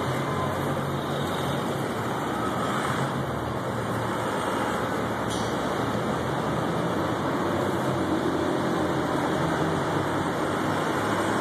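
Steady street traffic noise with a vehicle engine running, growing a little louder near the end as a lifted Ford Super Duty pickup truck pulls up.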